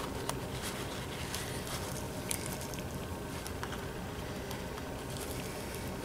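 Faint, scattered small clicks and scrapes of a small screwdriver working open the cable clamp of an XLR connector, over a steady low hum.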